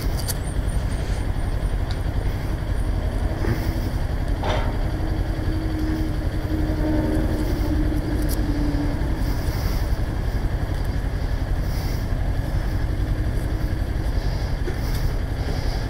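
Kawasaki Ninja 400 parallel-twin engine idling steadily, with a single brief click about four and a half seconds in.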